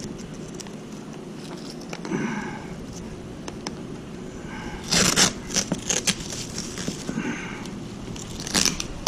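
Masking tape being pulled off its roll and pressed along a car body edge, with plastic masking sheet crinkling; two louder ripping pulls of tape come about five seconds in and near the end.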